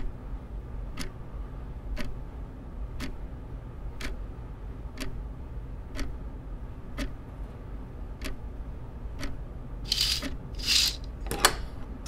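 Clock ticking slowly, one tick a second, over a steady low rumble. Near the end the ticking gives way to three short hissing swishes.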